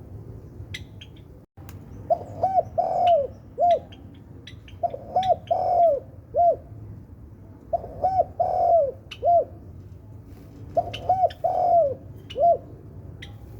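Spotted dove cooing: four repeated phrases about three seconds apart, each two quick coos, a longer drawn coo, then a short separate final coo.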